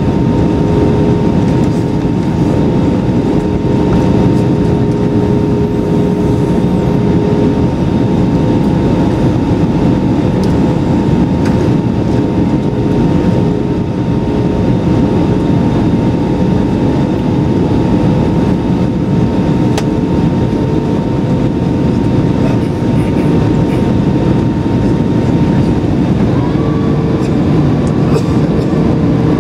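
Airbus A320-200 cabin noise in cruise: a loud, steady rumble of engines and airflow heard from a window seat over the wing, with a steady hum of a few tones on top, one of which shifts slightly in pitch near the end.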